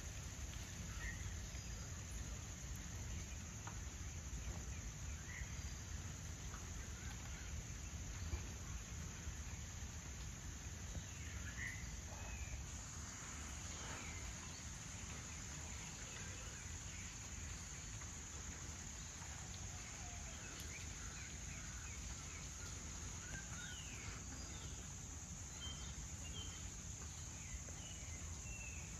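Wet forest ambience: a steady high insect drone, with scattered short bird chirps over a low wind rumble. The insect drone grows stronger about twelve seconds in.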